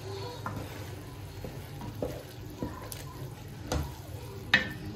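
Wooden spoon stirring minced beef sauce in a pot, with scattered scrapes and knocks against the pot and one louder knock near the end, over a low steady hum.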